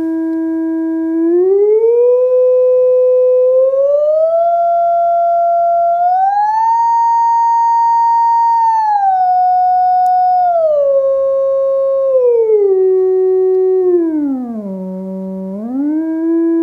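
Steady electronic tone from a small loudspeaker driven by a signal generator. The tone rises in steps as the frequency dial is turned up, reaching its highest pitch around the middle, then steps down below the starting note about three-quarters of the way through and comes back up to it near the end.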